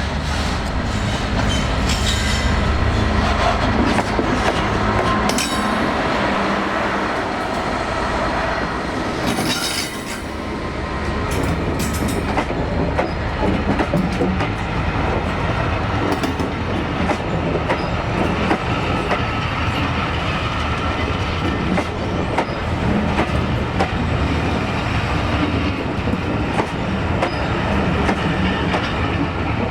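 Class 66 diesel locomotive and its train running through on the track: the diesel engine is heard in the first several seconds, then the wheels clatter over the rail joints with occasional squeals.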